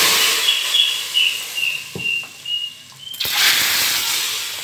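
Hot ghee tadka poured into cooked moong-masoor dal: a sudden loud sizzle that fades over about three seconds, then a second burst of sizzling about three seconds in. A thin high whistling tone runs under the first sizzle, falling slightly in pitch.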